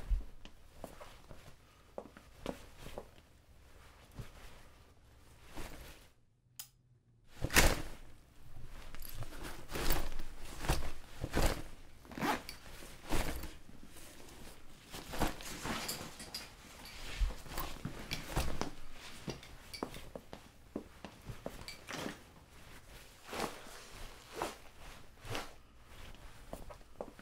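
Close handling noises of a submachine gun and gear: a run of sharp clicks and knocks, with one loud knock about seven and a half seconds in.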